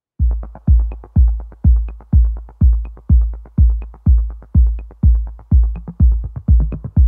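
Electronic background music with a steady kick-drum beat, about two beats a second, and a light tick on every other beat, starting just after a brief silence.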